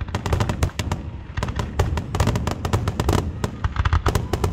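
Aerial fireworks shells bursting: a rapid, dense string of sharp bangs over a low rumble.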